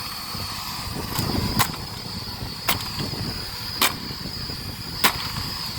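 Dirt Devil Power Max Pet vacuum cleaner running, with a steady high whine over a low rumble and five sharp clicks about a second apart.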